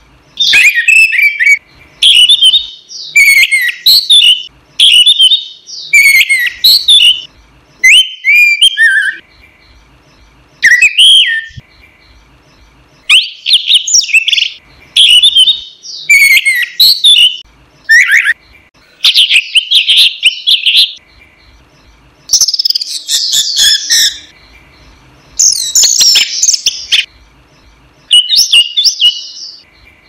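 Orange-headed thrush (anis merah) singing loudly and continuously: a string of varied, rapidly changing song phrases about a second long, separated by brief pauses, with a few longer phrases near the end.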